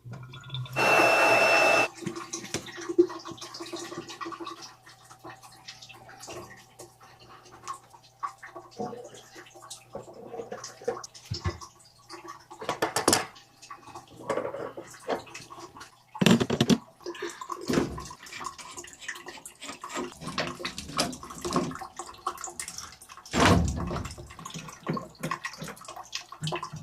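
Water running, with scattered knocks and clanks of plumbing work throughout; a loud noisy burst about a second in lasts roughly a second.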